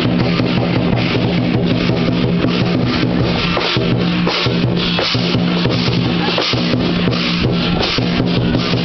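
Chinese lion dance percussion: a large drum beating a rapid, steady rhythm under continuous crashing cymbals.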